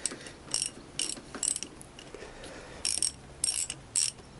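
Socket ratchet clicking in short bursts on its return strokes while a tight 10mm bolt is undone.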